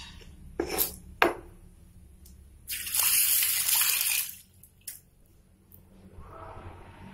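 Two short knocks, then water running for about a second and a half, starting and stopping sharply.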